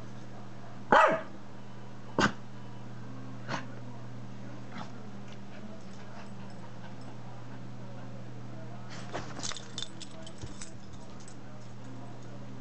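Dog barking: a short bark with falling pitch about a second in, a second one a second later, then fainter ones. A run of light clicks follows near the end.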